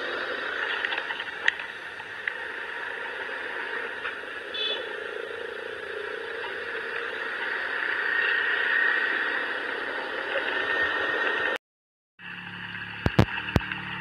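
Riding noise from a motor scooter on a wet road: a steady rush of wind and tyres. After a brief dropout near the end, a lower steady hum comes in with three sharp knocks.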